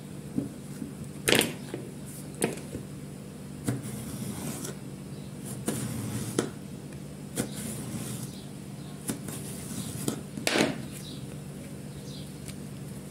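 A kitchen knife cutting through peeled eggplant and knocking on a bamboo cutting board: about a dozen sharp, irregular taps as the eggplant is cut into thin lengthwise strips, over a steady low hum.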